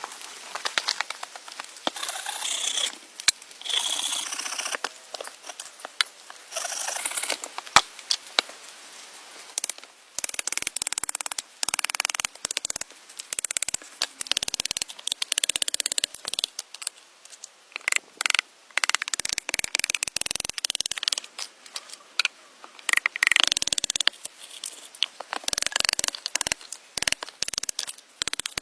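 Irregular scraping and rustling of shelter materials being handled, in short bursts of up to about a second, with a few sharp clicks about three and eight seconds in.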